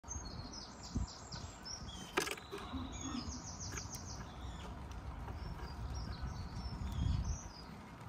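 Small songbirds chirping and trilling in quick runs of high notes, over a steady low rumble, with one sharp click a little over two seconds in.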